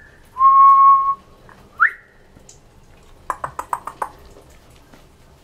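A person whistling and clicking their tongue to catch a puppy's attention: a short rising whistle, a held whistled note of about a second, another short upward whistle, then a quick run of about seven tongue clicks a little past the middle.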